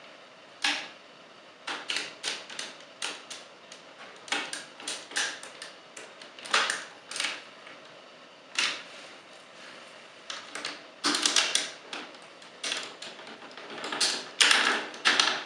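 Hard plastic parts of a Transformers action figure clicking and knocking as they are handled, pegged and adjusted into place: a string of irregular sharp clicks, coming thickest about two-thirds of the way in and again near the end.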